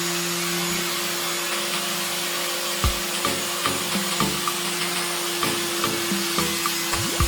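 Small electric power tool running at a steady speed, a constant hum over a hiss of abrasive work, with light ticks about three times a second and a few soft knocks in the second half.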